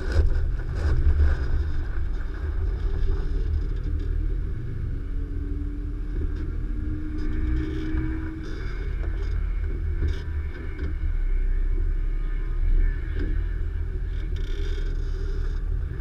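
Nissan Xterra Pro-4X's V6 engine running steadily at low speed over off-road terrain, a deep rumble with scattered knocks and rattles from the truck.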